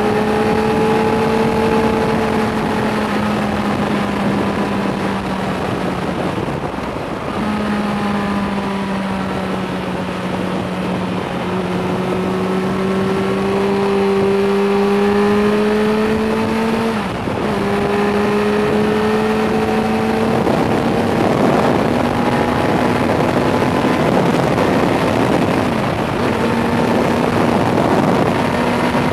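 Suzuki GSR 600 inline-four engine running under way, heard from the rider's position. The engine note rises and falls gently with the throttle and dips briefly about 7 and 17 seconds in. Wind and road noise run underneath.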